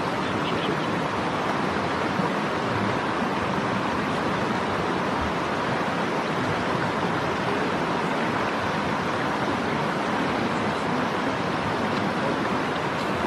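Steady rush of a shallow mountain stream running over a rocky riffle.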